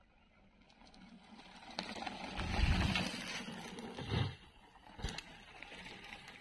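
Mountain bike rolling past on a dirt trail, its knobby tyres on dirt and dry leaves, building up and loudest about two and a half to three seconds in as it passes close. Then two short dull thumps, one a little after four seconds and one at five.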